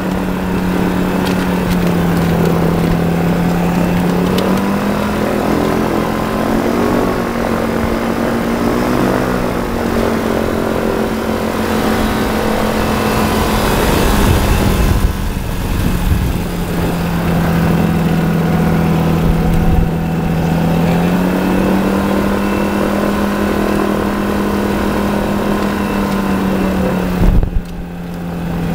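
Ultralight trike's engine and propeller running steadily while taxiing on the ground. The engine note steps up and down in pitch a few times with the throttle. A louder rush of noise comes in around the middle, and the sound dips briefly near the end.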